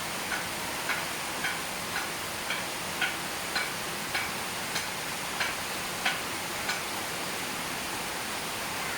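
Steady rainfall hiss. Over it comes a series of about a dozen short chirp-like notes, evenly spaced about half a second apart, which stop about seven seconds in.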